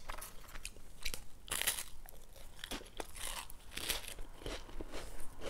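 A person chewing and crunching crackers, picked up close by a lapel mic: irregular crisp crunches all through.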